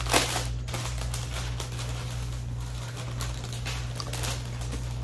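Scattered light clicks and crinkling of small things being handled at a table, over a steady low hum.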